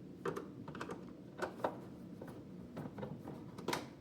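A handful of sharp clicks and taps of a screwdriver and hands working at the screws in the plastic side casing of a DeLonghi Magnifica espresso machine, the loudest near the end.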